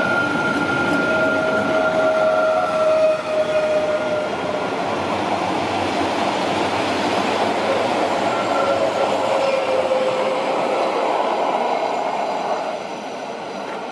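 Vintage Rhaetian Railway train, a historic electric locomotive and its coaches, rolling past with a steady rumble of wheels on rails and a few drawn-out high squealing tones. The sound drops off shortly before the end as the last coach goes by.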